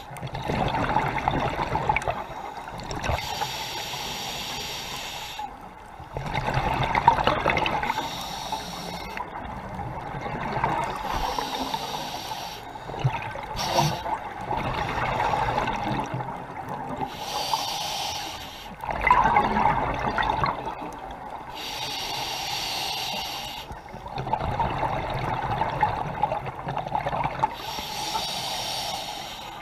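Scuba diver breathing through an open-circuit regulator underwater: a hiss on each inhalation, then a rush of bubbles on each exhalation. The breaths are slow and steady, about one every five seconds.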